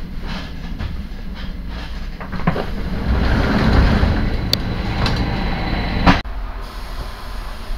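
Inside a passenger train carriage: the steady rumble of the train running over the track, with a few clicks over rail joints. The noise swells in the middle, and there is a sharp clunk about six seconds in, after which it runs quieter.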